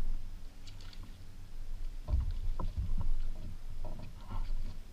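Water slapping and knocking against the hull of a small flats skiff: a run of irregular low thumps over a low rumble, the densest stretch about two to four seconds in.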